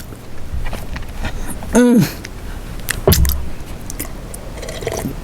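Close-miked chewing of food, with scattered small clicks and knocks, and one short hummed voice sound about two seconds in.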